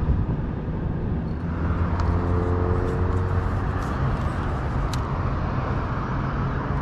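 Steady low rumble of road traffic, with a passing vehicle's hum standing out for a couple of seconds near the start. Two faint clicks are also heard.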